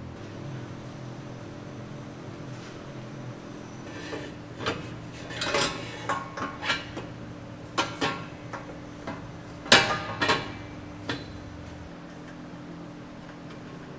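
Metal exhaust pipe clinking and clanking as it is fitted by hand under the truck. A scatter of sharp knocks comes between about four and eleven seconds in, the loudest near ten seconds, over a steady background hum.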